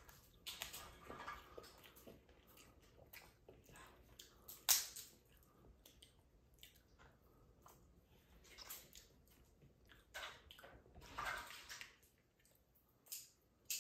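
Boiled crab leg shells being cracked and snapped apart by hand, with scattered sharp cracks and wet sucking and squishing as the meat is pulled out. One sharp crack comes about a third of the way in, and a longer, louder stretch comes near the end.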